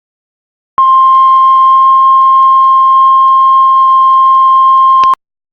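Heart monitor flatline: one loud, steady high beep held for about four seconds, starting about a second in and cutting off abruptly near the end. The unbroken tone is the monitor's sign that the heart has stopped.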